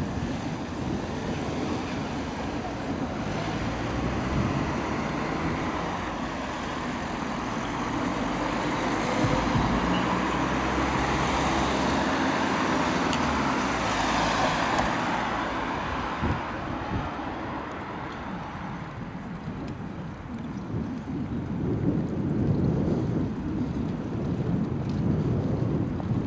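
Wind noise on the microphone of a camera on a moving bicycle, with street traffic. Around the middle a van passes close by, its engine and tyre noise swelling and then fading.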